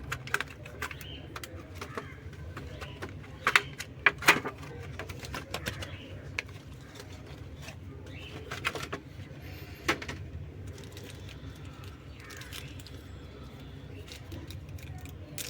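Irregular clicks and taps from hands working on a laptop and its parts, with a few sharper clicks about three and a half and four seconds in and another near ten seconds, over a steady low hum.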